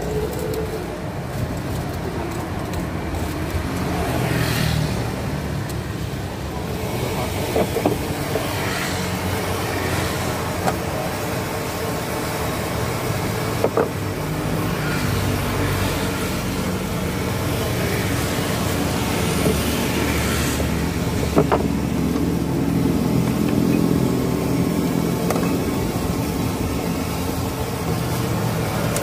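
Steady low rumble of a busy roadside food stall, with a few sharp clinks of utensils against bowls and the metal noodle pot.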